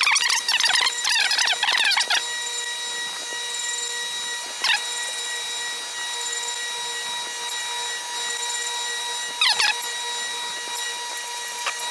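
Surface grinder running with a steady whine from the wheel spindle and hiss. Brief screeching bursts come three times, about every five seconds, the longest in the first two seconds, as the grinding wheel passes over the ejector pin's end to grind it down.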